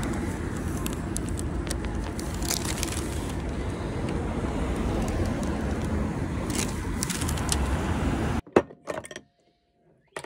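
Steady rumbling road noise of a moving vehicle, with scattered light clicks and rattles. It cuts off suddenly about eight seconds in, leaving quiet broken by a few soft knocks.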